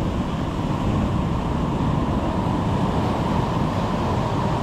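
Steady rushing noise of wind buffeting the microphone over surf on the shore, heaviest in the low rumble.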